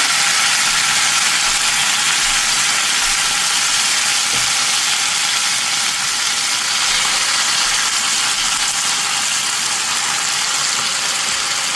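Food sizzling loudly and steadily in a hot cast iron wok: a dense, even crackling hiss.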